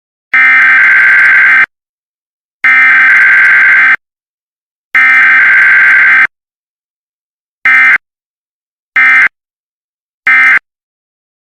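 Emergency Alert System SAME digital header tones: three long bursts of harsh, screechy data buzzing, then three short ones, each separated by silence. This is the encoded data burst that precedes an EAS alert's attention signal.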